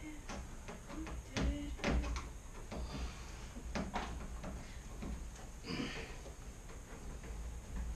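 Scattered knocks and clanks of sheet-metal cabinet parts being handled and fitted together during assembly, over a steady low hum.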